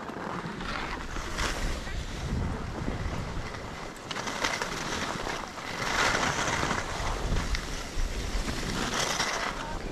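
Edges scraping over firm, chopped-up snow through a series of turns, swelling with each turn every couple of seconds, with wind rushing over the microphone.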